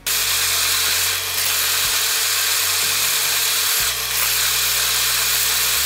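Atlas metal lathe drilling into the workpiece with a twist drill held in the tailstock chuck, heard sped up as a steady, noisy whir with a faint steady hum underneath. The hum shifts about four seconds in.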